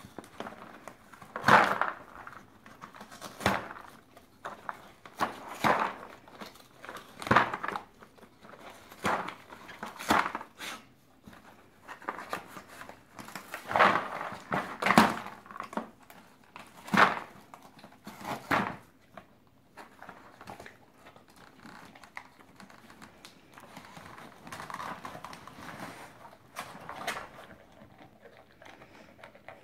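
A dog rummaging in a cardboard yogurt-carton tray for dry food pieces: irregular crinkling, scraping and knocks of cardboard as the tray is nosed, torn and tipped. The sounds come every second or two at first and turn to softer rustling in the last third.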